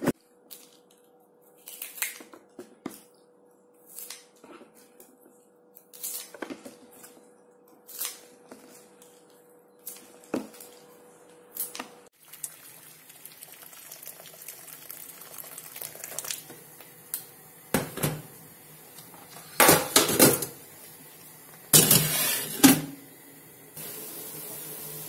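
Kitchen prep sounds: a cleaver knocking on a cutting board every couple of seconds, then lighter clicks and two loud clatters as bok choy is handled by a plastic colander. Near the end, the steady rush of water at a rolling boil.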